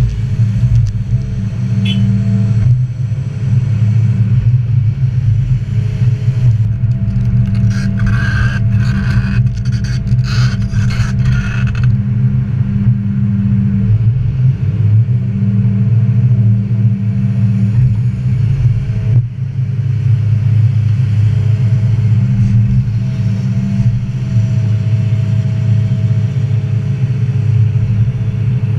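Cat 330 hydraulic excavator's diesel engine running steadily as the machine swings and digs, with a stretch of sharp clattering from about seven to twelve seconds in.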